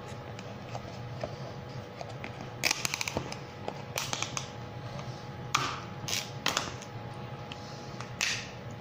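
Thin plastic food container being gripped and flexed while mushy peas are tipped out, giving crinkly clicks and crackles in short clusters, over a steady low hum.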